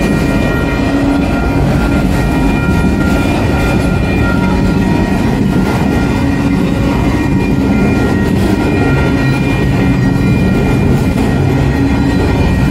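Freight train of autorack cars rolling past at close range: a steady rumble of steel wheels on the rails, with a few thin steady high tones above it.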